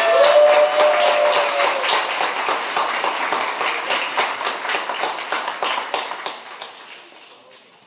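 Audience applauding, with a voice holding one long note over the first couple of seconds; the clapping dies away near the end.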